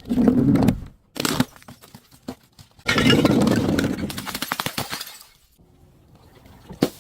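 Things being broken and crushed: a loud crunching crash at the start, scattered sharp cracks, then a longer crash of many breaking impacts from about three seconds in that dies away. Near the end come a few sharp hits.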